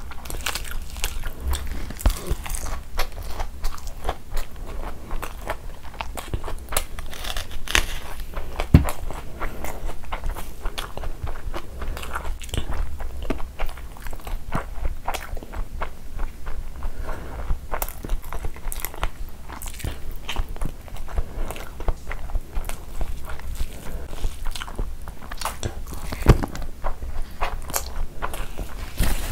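Close-miked eating: biting and chewing mouthfuls of rice with chicken and egg curry, with the wet sounds of a hand mixing rice and gravy. A steady run of small clicks, smacks and crunches.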